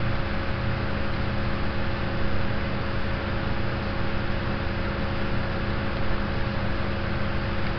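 Steady background hiss with a faint, even hum: the recording's room or microphone noise, with no other event.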